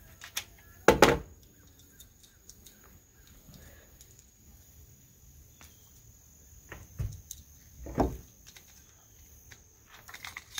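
Handling noises of .22 LR subsonic cartridges being loaded into a pistol magazine: small scattered clicks, with two louder short knocks about a second in and around eight seconds.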